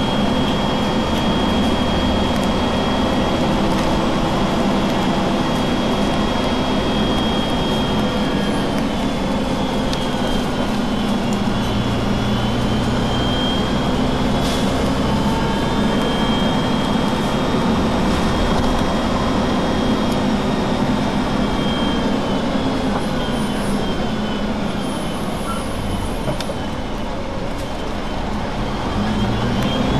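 Diesel bus engine idling steadily, with a constant high whine above the low engine hum.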